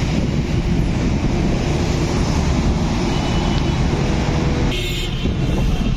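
Road traffic at a busy intersection: a steady rumble of engines and tyres, with a brief hiss about five seconds in.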